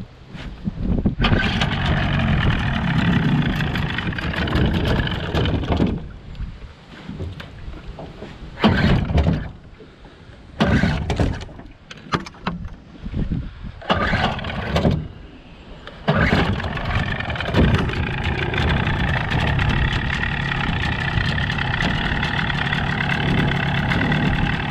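Johnson 35 hp two-stroke outboard motor being started. It runs for a few seconds and dies, catches in several short bursts, then starts about two-thirds of the way through and keeps running steadily.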